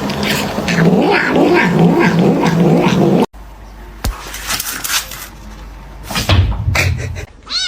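A cat yowling loudly for about three seconds, cut off abruptly, followed by quieter sounds.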